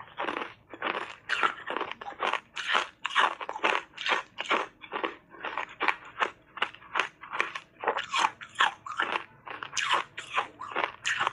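Hard ice coated in matcha powder being crunched between the teeth, close-miked: a steady run of sharp crunches, about two to three a second.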